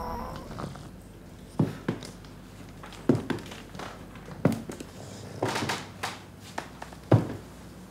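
Slow footsteps of heeled boots on a hard floor: four distinct heel strikes roughly a second and a half apart, with a brief soft rustle between the third and fourth.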